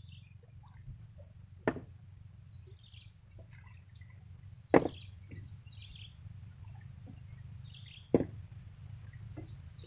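Three sharp knocks about three seconds apart over a steady low hum, with short, high chirps of small birds between them.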